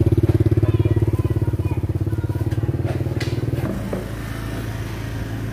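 Small motorbike engine running with a fast, even beat, then easing off about two-thirds of the way through to a quieter, steadier idle.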